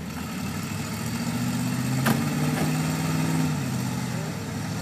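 Old Willys pickup's engine working through a mud hole: the engine note rises about a second in, holds for a couple of seconds, then drops back. A single sharp knock comes about two seconds in.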